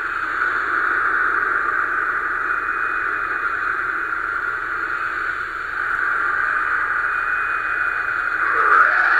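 Flash cartoon soundtrack playing through laptop speakers: a steady hissing noise throughout, with a short sweeping sound near the end.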